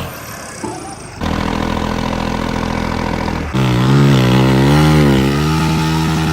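Tractor engine running and revving under load in short clips cut together; in the last part its pitch wavers up and down as it labours.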